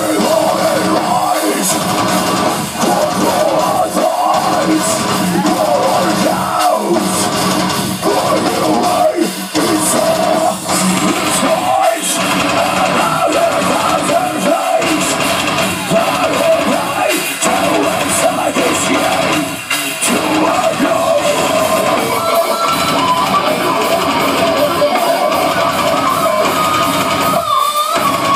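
A live rock band playing loud, with electric guitars and a drum kit, heard from the audience in a concert hall.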